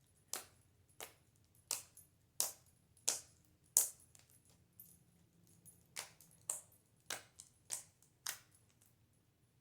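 Homemade clay slime being worked in the hands, giving a series of sharp clicks and pops, about one every half to three-quarters of a second, as air pockets in the slime burst.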